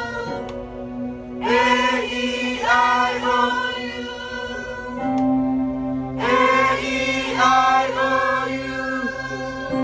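Choir singing a vocal warm-up on the vowels A, E, I, O, U, in short runs of changing vowels over a steady low held note.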